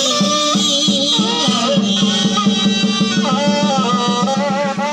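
Traditional Vietnamese funeral band music: a wavering, ornamented melody over a steady, quick drum beat.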